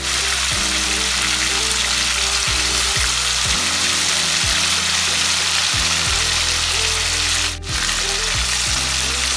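Small pieces of fish deep-frying in hot oil in a kadai, a loud, steady sizzle as the oil bubbles around them, with a perforated spoon stirring and more pieces being dropped in. The sizzle breaks off briefly about three-quarters of the way through.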